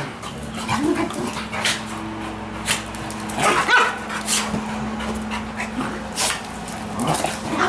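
A Staffordshire terrier and a dachshund play-fighting, with short barks and yips scattered through, the loudest a little past halfway.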